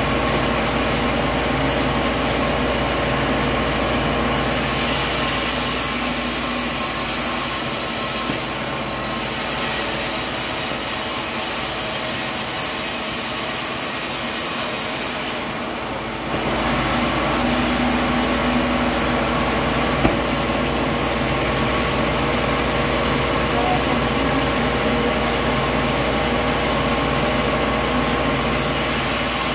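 Sawmill machinery running with a steady mechanical hum and several held tones. A high hiss switches on and off a few times.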